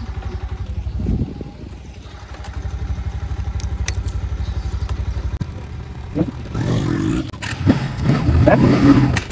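Bajaj Pulsar motorcycle's single-cylinder engine idling with a steady rapid pulse, then pulling away and picking up speed over the last few seconds.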